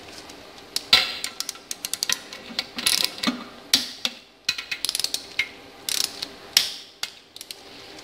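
Ratchet wrench clicking in quick runs, with a few sharper clicks, as two 10 mm bolts are tightened on the timing-chain end of an engine.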